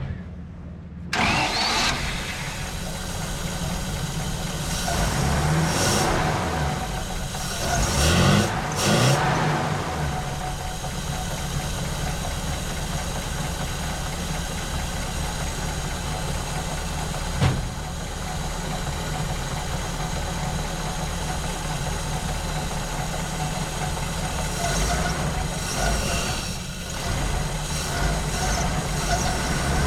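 The 1950 Pontiac's flathead engine starts about a second in, running on its freshly rebuilt carburetor. It is revved briefly twice, then idles, with one sharp pop partway through. The owners are still trying to get the mixture right and suspect the accelerator pump is not working.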